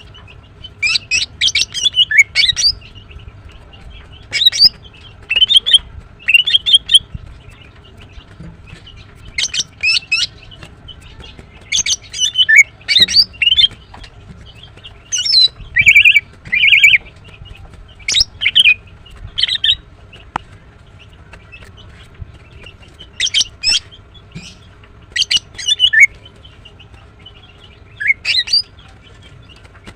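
Female greater green leafbird (Chloropsis sonnerati) calling in short clusters of rapid, high chirps, a new cluster every second or two with brief pauses between. The uploader presents these as the calls of a female in breeding condition calling to males.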